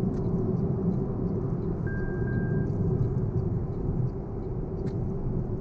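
Toyota Prius on the move: steady low road and tyre rumble, with a brief faint high tone about two seconds in.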